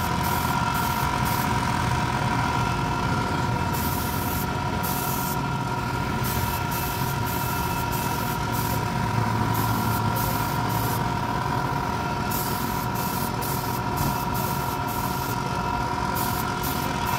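Air compressor running steadily with a constant whine and low hum, while a spray gun's compressed-air hiss starts and stops in short bursts, many times.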